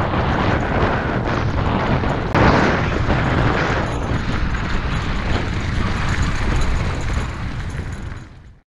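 Wind buffeting the microphone and mountain-bike tyres rumbling and rattling over a dirt and gravel fire road at speed, with a louder burst about two and a half seconds in. Fades out near the end.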